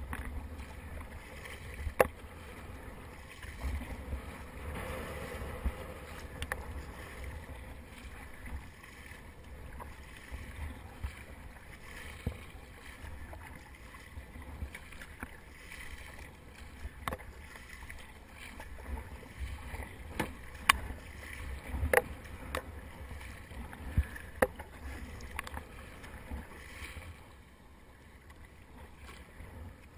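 Kayak paddle strokes splashing and dripping water beside a Fluid Bamba sit-on-top kayak, with a low rumble underneath and occasional sharp knocks. The sound grows quieter near the end as the paddling stops and the kayak glides.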